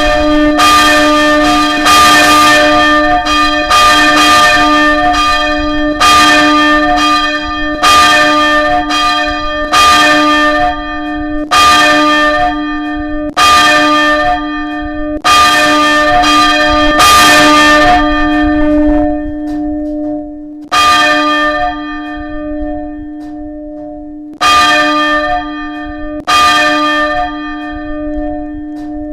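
Church tower bell ringing, struck about once a second, each stroke ringing on into the next over a steady low hum. In the last ten seconds the strokes come further apart and the ringing dies away.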